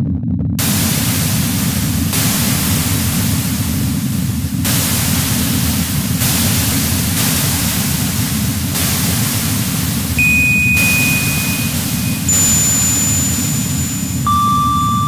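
Noise music: a steady low band of noise under a hiss that cuts in about half a second in and shifts in level in blocks every second or two. From about ten seconds in, held electronic tones join one after another: a high one, then a higher one, then a lower one near the end.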